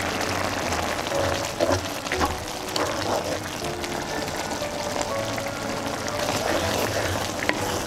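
Light background music with short melodic notes over the steady bubbling and sizzling of a simmering pot of curry stew.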